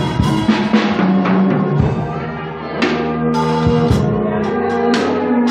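A drum kit being played with sticks over steady background music: a quick run of drum hits in the first two seconds, then single cymbal-and-drum crashes spaced about a second apart.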